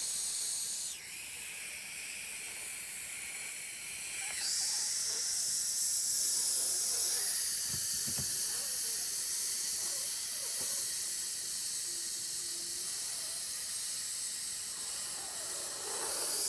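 A man's mouth-made hiss imitating air rushing into an inflatable mascot balloon as it fills. It is one long continuous hiss that shifts in tone about a second in and again about four seconds in, and grows louder after the second shift.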